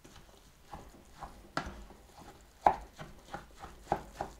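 Wooden spoon stirring and cutting through a thick, crumbly oat, coconut and walnut mixture in a small saucepan: soft scrapes and irregular light knocks of the spoon against the pot, the sharpest about one and a half and two and a half seconds in, then a quicker run of small ones near the end.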